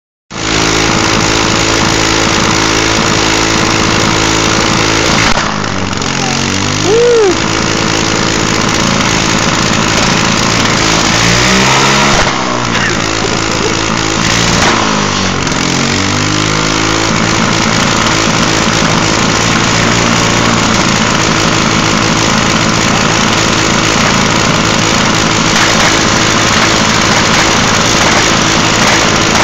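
Small single-cylinder 3.5 hp Briggs & Stratton engine on a nitrous-fitted mini bike, running steadily. It is revved up and back down three times in the first half, then settles back to a steady run.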